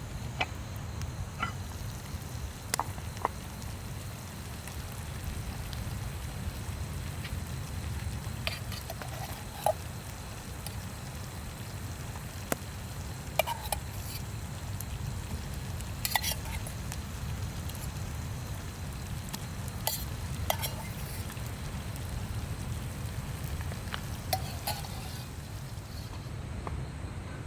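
Crackling and sizzling over an open wood fire: scattered sharp pops against a steady low rumble.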